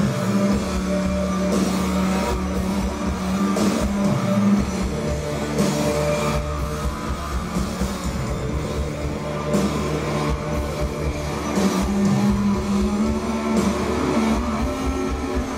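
A live psychedelic rock band playing loud, with long held guitar and bass notes and occasional cymbal crashes.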